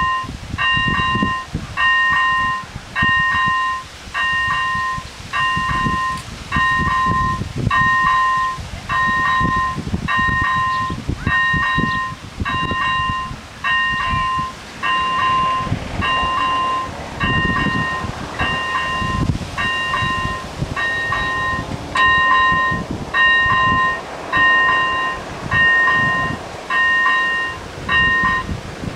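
AŽD 97 level-crossing electronic warning bell sounding a pulsed multi-pitch tone about once a second, warning of an approaching train. It stops near the end as the barriers come down.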